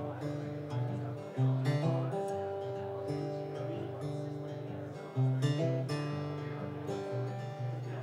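Acoustic guitar playing a slow song intro: chords strummed and left to ring, with harder strums about a second and a half in and again about five seconds in.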